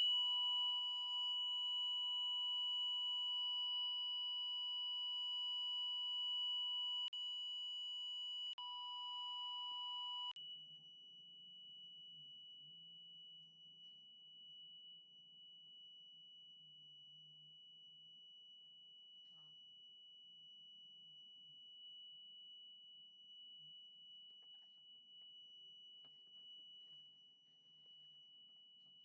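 Hotel fire alarm sounding a steady, unbroken electronic tone during a routine six-monthly alarm test. About ten seconds in, the tone changes to a thinner, higher one and gets quieter.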